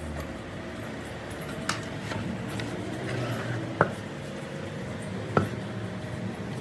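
Three sharp knocks, about two seconds apart, over a steady low hum.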